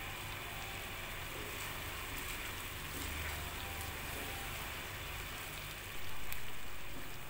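Glutinous rice cooking in coconut milk in a nonstick frying pan, a steady hiss as it simmers on low heat while a wooden spatula stirs it; about six seconds in the stirring grows louder for a moment. This is the rice being par-cooked into aron while it soaks up the coconut milk.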